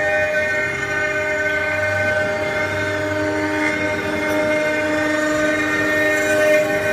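6090 CNC engraving router running, its spindle and bit carving a wooden log turning on the rotary axis: a steady whine of several tones, with a low hum joining about two seconds in.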